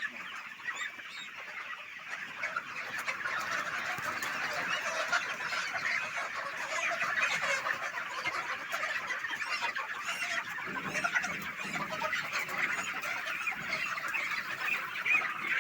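A flock of Aseel native chickens clucking and calling, many birds at once in a continuous, dense chatter.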